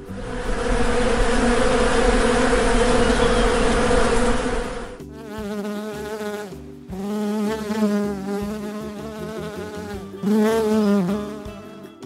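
Honeybees buzzing: first the dense hum of many bees crowded at a hive entrance, then from about five seconds a single bee's buzz that wavers in pitch, breaking off twice.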